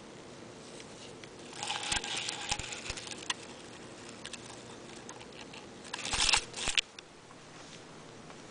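Artificial Christmas tree branches rustling and crackling in two bursts, the first starting about one and a half seconds in, the second around six seconds in, as they are pushed and brushed through.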